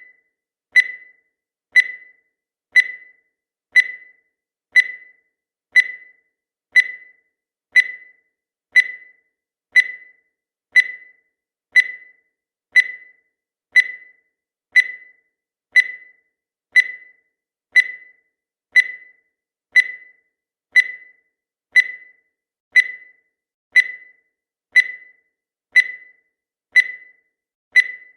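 Countdown timer sound effect: a short, high electronic beep once a second, each fading quickly, with silence between.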